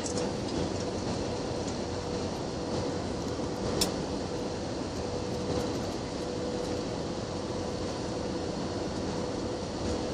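Steady jet-engine and airflow noise inside an airliner's cabin during descent on approach, flaps extended, with a faint steady hum and a single click about four seconds in.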